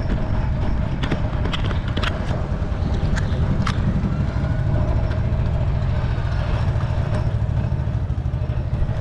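Boat engine running with a steady low drone, with a few light clicks and knocks.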